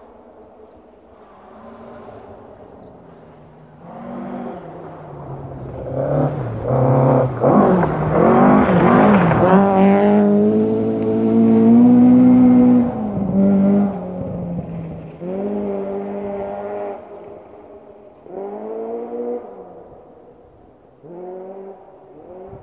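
Ford Escort Mk2 rally car's Cosworth BDA four-cylinder engine at full throttle, heard approaching. It revs up again and again, with each rise cut by a drop in pitch at a gear change, and is loudest in the middle. Then it comes in shorter, fainter bursts of revs as it gets further off.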